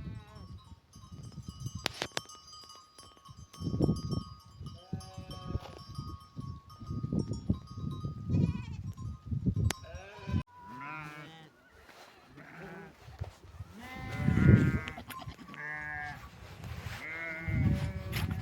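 Sheep bleating, several wavering calls overlapping and growing more frequent in the second half. There are low rumbles in the first half.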